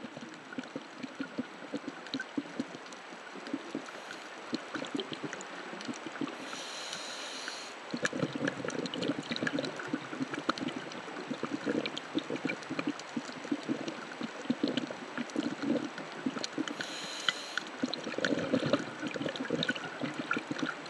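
Underwater sound of a scuba diver breathing through a regulator: a short hiss of inhalation followed by a few seconds of bubbling exhaled air, twice, about ten seconds apart. Throughout runs a steady fine crackle of clicks in the water.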